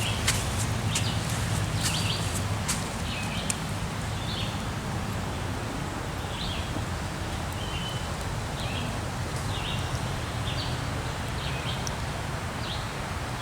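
A small bird repeats short, high chirps every half second to a second over a steady background hiss, with a few sharp clicks in the first few seconds.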